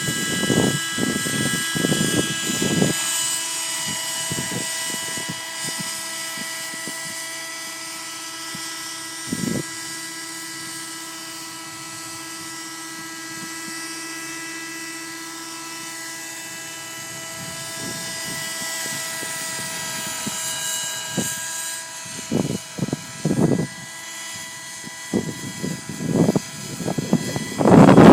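Raptor 30 V2 nitro model helicopter in flight: a steady high-pitched whine from its small glow engine and rotors, with the pitch shifting slightly. Wind buffets the microphone in gusts at the start and again in the last several seconds, the loudest near the end.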